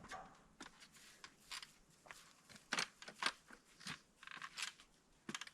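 Irregular light clicks, crunches and scrapes, about a dozen short sounds in a few seconds, from a ladder and a roofing panel being shifted and set in place by hand.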